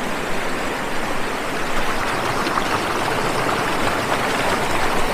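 Creek water rushing steadily down a small waterfall, an even, unbroken rush.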